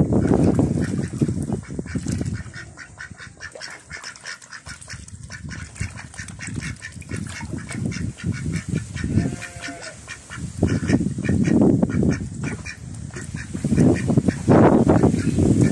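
A group of domestic ducks dabbling at the water surface as they feed, their bills working the water in rapid, wet clicking, with some quacking.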